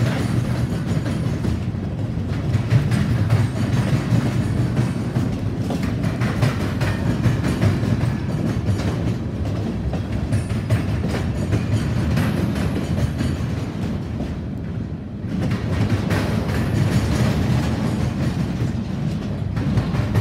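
A freight train's cars roll past close by: a steady rumble of steel wheels on rail with irregular clanks and clicks. The sound eases briefly about fifteen seconds in.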